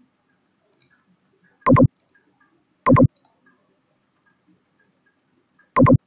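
Computer mouse button clicked three times close to the microphone, each click a quick press-and-release double tick: about a second and a half in, again a second later, and once near the end.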